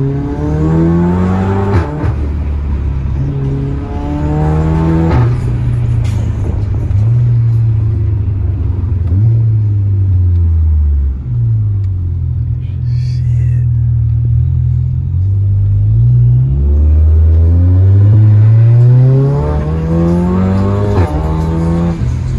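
Tuned VW Golf R Mk7's turbocharged four-cylinder engine heard from inside the cabin, accelerating hard. The engine note climbs and drops back several times as it runs up through the gears, with a long climb near the end.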